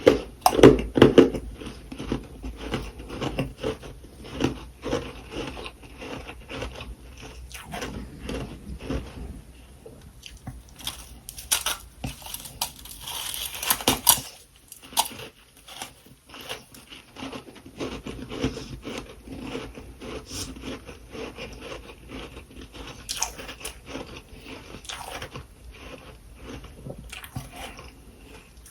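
A person biting and chewing freezer frost close to the microphone: dense, irregular crunching with many small crackles, and a brief brighter hiss about halfway through.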